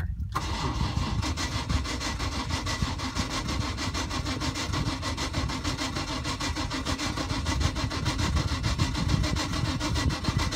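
Carbureted MerCruiser 350 V8 inboard cranking over on its starter with an even, rhythmic churn and not catching: a cold start after two months in storage.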